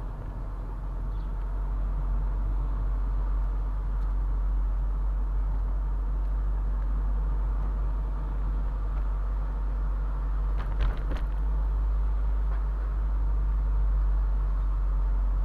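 Convertible car on the road: steady engine and road noise with a heavy low rumble. There is a short cluster of sharp clicks about eleven seconds in.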